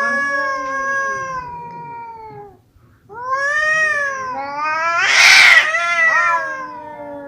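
Male cats caterwauling in a fight standoff: a long drawn-out yowl that sinks in pitch, a brief pause, then more long wavering yowls. About five seconds in, the loudest moment is a harsh hissing burst.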